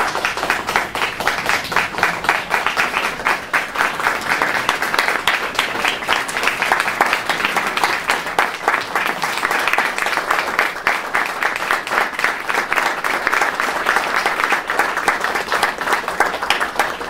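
Audience applauding in a hall: dense, steady clapping that stops right at the end.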